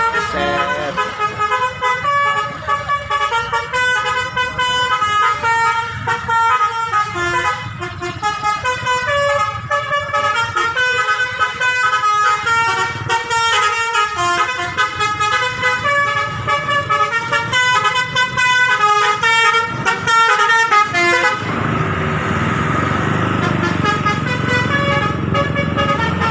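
A bus 'telolet' musical air horn playing a tune, sounding note after note in quick succession for most of the stretch. About three-quarters of the way through the tune stops and a steadier, noisier sound takes over.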